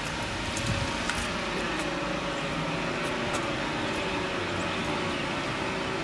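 Steady machine hum with a few faint ticks about a second in.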